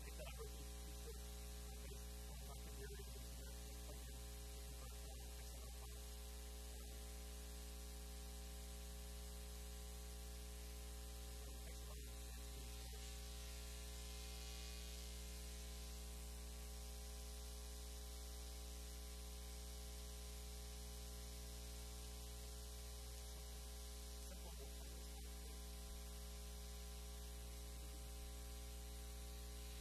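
Steady electrical mains hum with a buzzing row of overtones over a constant hiss, unchanging throughout.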